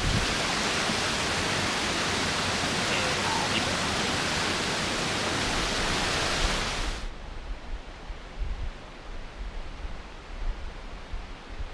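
Waterfall rushing in a steady, even roar that cuts off abruptly about seven seconds in, leaving a fainter low rumble.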